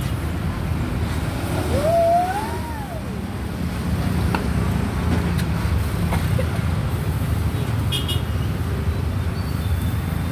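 Road traffic running steadily, heard mostly as a low rumble. About two seconds in, a tone rises and then falls in pitch.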